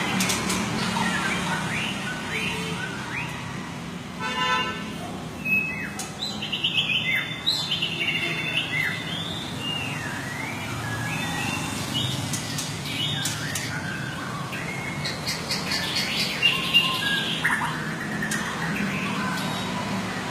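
Murai songbird singing a fast, varied song of whistled glides, chirps and short trills, with a buzzy note about four seconds in and a dense run of notes a little later, over a steady low hum.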